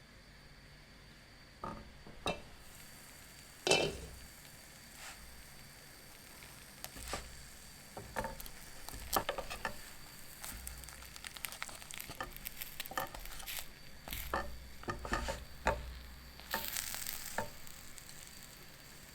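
Egg toast frying in a pan: a steady sizzle broken by irregular clicks and scrapes of a utensil against the pan, busiest in the second half.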